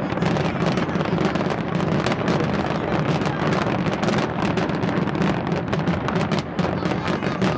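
Big fireworks display going off, a continuous rumble of rapid bangs and crackling running together with no gaps.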